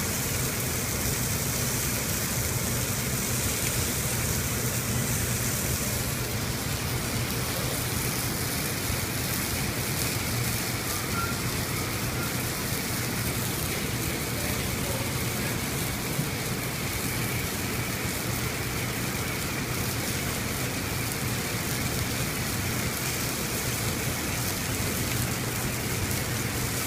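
Steady rushing hiss over a low hum: the background noise of a working restaurant kitchen. A brighter hiss sits on top for about the first six seconds.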